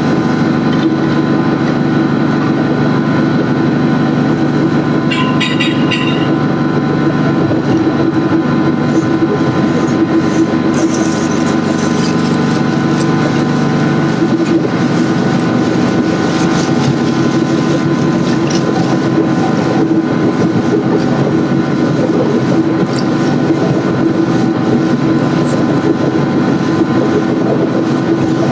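Machinery running steadily and loudly, with several held tones over a rumbling noise, and a brief higher rattle about five seconds in.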